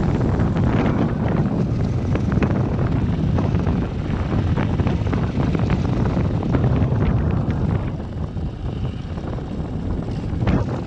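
Motorcycle running at riding speed, with heavy wind buffeting on the microphone. The noise drops a little about eight seconds in.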